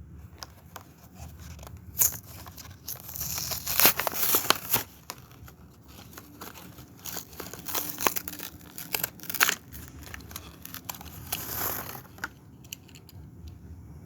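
Hot Wheels blister pack being torn open by hand: the cardboard card ripping and the plastic blister crinkling and crackling in a string of sharp rips, loudest about four seconds in, then quieter handling near the end.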